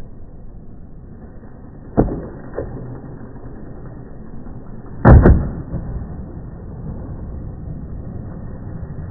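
Skateboard wheels rolling on concrete with a steady rumble. About two seconds in, the tail snaps against the ground for the ollie pop, with a lighter knock just after. About five seconds in comes the loudest sound, a double clack as the board and wheels land, before the rolling goes on.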